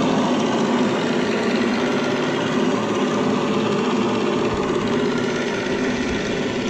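Small combustion engines of a twin-engine scale RC model airplane idling steadily on the ground.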